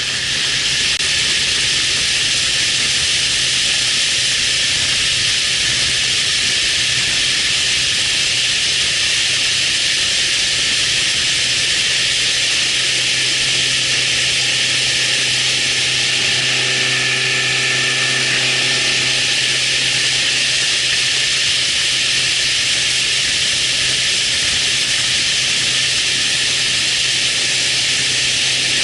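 A motor running steadily with a constant low hum under a loud, even hiss.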